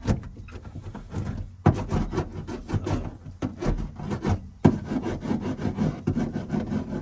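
Hand roller rubbing and scraping over sound-deadening mat in short, irregular back-and-forth strokes, pressing the mat flat, with a sharper knock about a second and a half in and again near the five-second mark.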